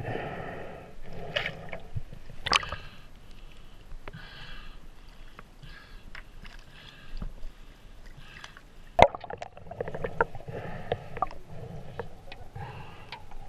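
Muffled water sloshing and gurgling as the microphone dips under and out of pond water, with a few sharp knocks from handling; the loudest knock comes about nine seconds in.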